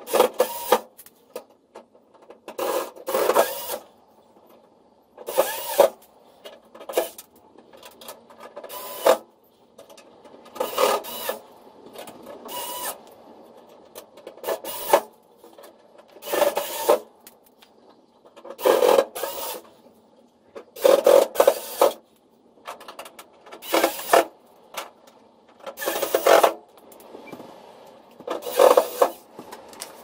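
Cordless electric screwdriver driving screws back into a tumble dryer's sheet-metal rear panel, running in short bursts about every second or two.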